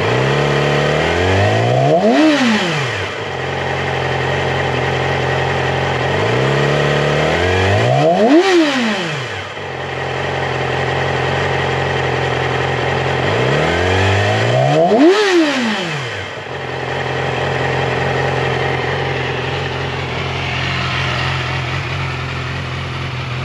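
2016 Yamaha R6's inline-four engine idling, blipped three times about six seconds apart. Each time the revs climb quickly and drop straight back to a steady idle.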